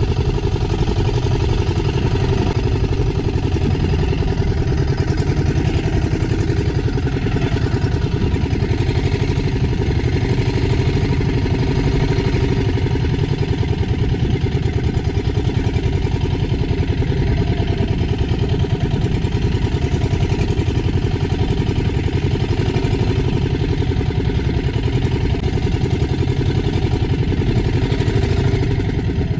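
Small engine of a motorized outrigger fishing boat (bangka) running steadily while the boat is under way on choppy sea. The sound drops off near the end.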